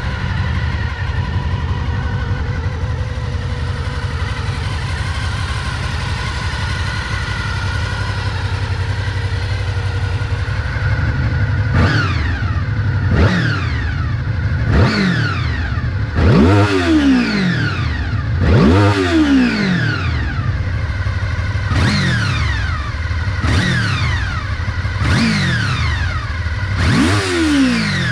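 Honda VFR800FI's V4 engine idling steadily, then, from about halfway through, revved in a series of about nine short throttle blips, each rising quickly and falling back to idle.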